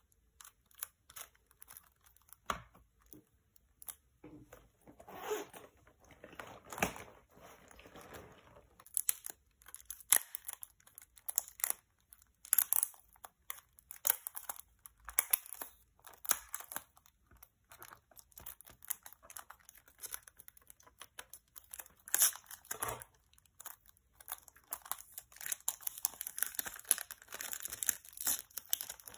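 Cellophane shrink-wrap on a plastic CD jewel case being picked at with fingernails, torn and peeled off: irregular crinkling and crackling with small sharp clicks, busier in the last few seconds.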